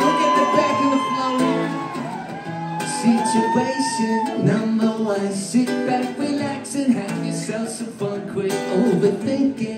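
Live music: an acoustic guitar strummed over a beat, with singing.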